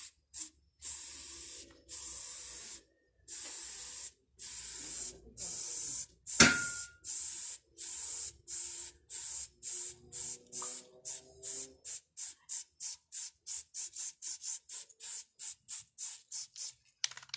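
Aerosol spray paint can hissing in bursts as green paint goes onto a wall: first several longer sprays of a second or more, then a run of short quick puffs, about two or three a second, in the second half. A single sharp knock about six seconds in is the loudest sound.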